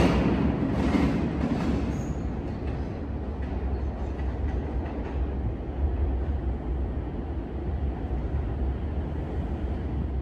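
New York City Subway train pulling away down the tunnel: wheel clatter fades over the first couple of seconds, leaving a low, steady rumble.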